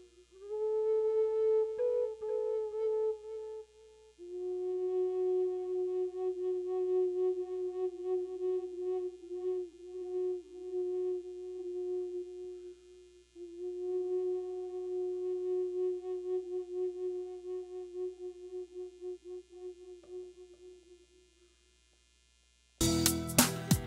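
Native American flute played in long, slow held notes with a wavering pitch, the phrases parted by short breaths; the last note fades away. About a second before the end, loud music with a beat cuts in abruptly.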